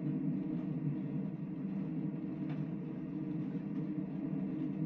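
Steady low drone and rumble of the ferry Sunflower Sapporo's engines, heard from on board, even throughout with a faint click about halfway through.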